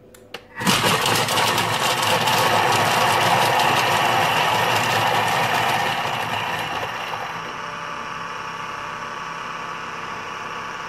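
Vorwerk Thermomix blade spinning at speed 5 and chopping half an onion, starting about half a second in. It is loudest for the first few seconds, then settles to a quieter, steadier whir after about six seconds.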